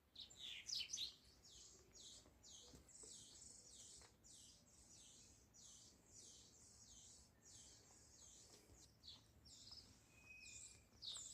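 A small bird chirping faintly, a steady run of short high chirps about twice a second, a little louder in the first second.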